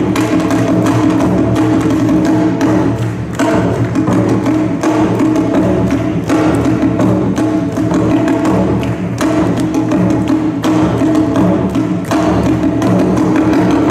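Loud yosakoi dance music with heavy percussion and many sharp wooden clacks over a steady beat.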